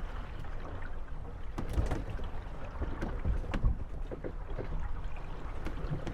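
Moored wooden gondolas rocking on the water, creaking and knocking irregularly against one another, over a steady low rumble of wind and lapping water.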